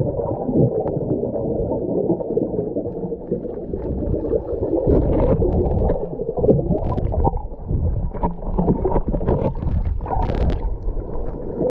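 Muffled underwater sound through a waterproof camera housing: a steady rush and gurgle of water, with scattered faint clicks from about four seconds in. It cuts off suddenly at the end.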